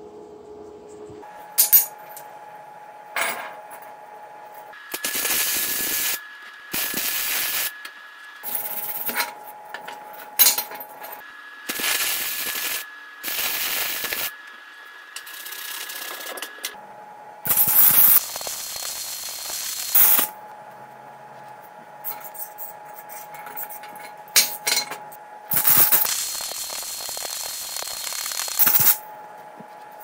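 Stick (arc) welder laying short tack welds on steel: a dozen or so separate bursts of crackling and hissing, each lasting one to two seconds, with a faint steady tone in the pauses between them.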